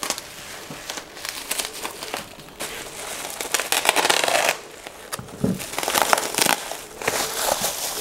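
Packaging being unwrapped by hand: irregular crinkling and crumpling, louder in a couple of stretches in the middle and later on.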